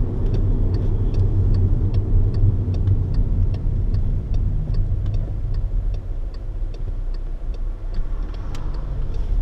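Low, steady rumble of engine and road noise inside a moving car, with a car's turn-signal indicator ticking evenly, about two to three ticks a second, as the car nears a turn.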